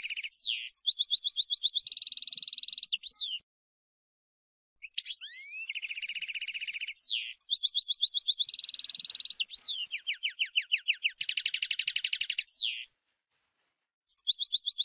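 European goldfinch singing: long phrases of fast trills, buzzy rattles and quick rising and falling whistled notes, with a pause about three and a half seconds in, another near the end, then a short fresh phrase.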